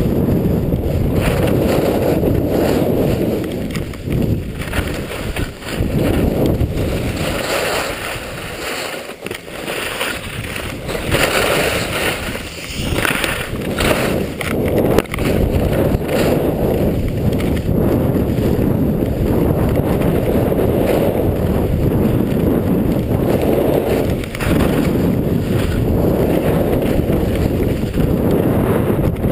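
Wind buffeting the microphone of a chest-mounted GoPro while skiing downhill fast, with the hiss and scrape of skis carving on packed snow. The wind noise drops for a few seconds partway through, where the ski scraping comes through more clearly.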